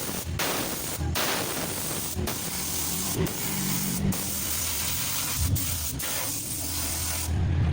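Paint being sprayed: a steady hiss that stops briefly about once a second, as the spray is released and pressed again.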